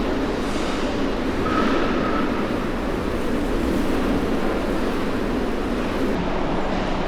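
Strong wind blowing over a microphone: a steady rumbling roar of wind noise. The hiss at the top of the range drops out abruptly about six seconds in.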